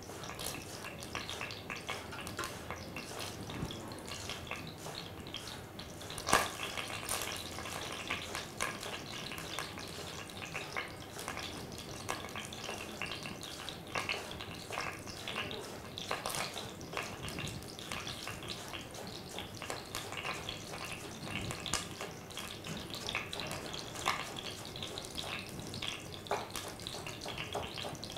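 Kitchen knife chopping spring onions on a wooden cutting board: irregular sharp taps, with one louder knock about six seconds in, over a steady hiss.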